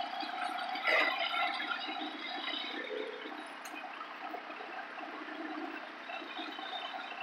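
Garden tractor with a snowblower attachment running through deep snow: a steady rushing noise, with a single knock about a second in.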